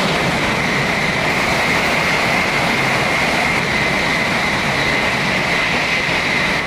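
Shinkansen high-speed train passing through a station at speed: a loud, steady rush of air and rail noise with a high whine running through it.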